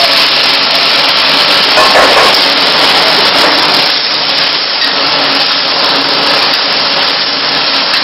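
Steady hiss of prawn gravy cooking in an aluminium kadai over a gas burner, while a metal spatula stirs it.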